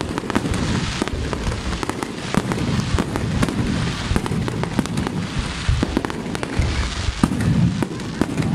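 Fireworks display: a rapid, irregular run of bangs and crackles from bursting shells, one after another, over a continuous low rumble.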